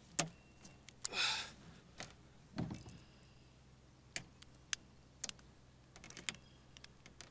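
Scattered faint clicks and knocks from handling a large channel catfish and a fish lip gripper in a plastic kayak, with a short rush of noise about a second in and a dull thump about two and a half seconds in.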